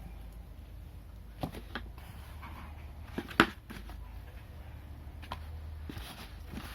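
Light clicks and taps from small objects being handled, the sharpest about three and a half seconds in, over a steady low hum.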